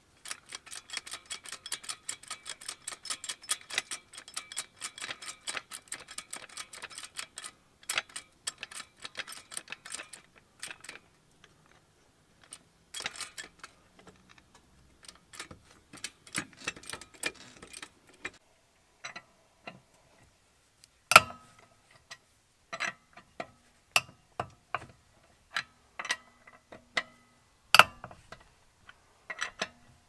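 Hydraulic floor jack being pumped up under a car, its pump making rapid even clicks of about five a second that thin out and stop partway through. After that come a few louder, sharper metallic clicks and clanks, some with a short ring.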